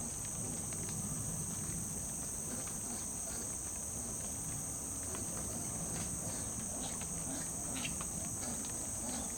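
Steady, high-pitched chorus of insects, with faint scattered ticks and rustles.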